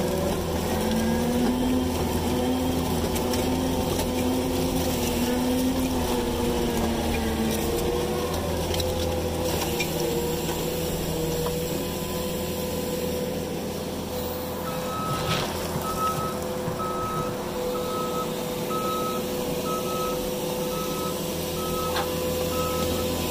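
New Holland skid steer's diesel engine running under working load, its pitch wavering up and down for the first several seconds. From about two thirds of the way in, its backup alarm beeps steadily, about once a second, as the machine reverses.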